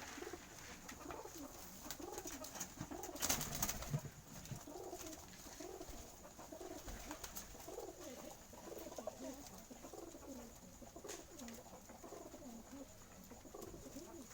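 Domestic pigeons cooing again and again, short rising-and-falling coos following one another. A brief loud rustle breaks in about three seconds in.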